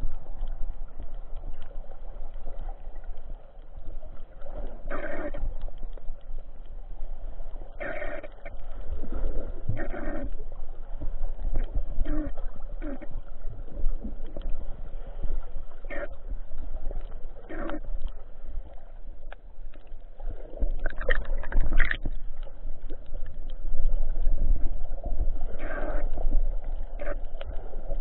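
Water noise picked up by a camera underwater: a steady low rumble with short gurgling bursts every few seconds, several close together about three-quarters of the way through.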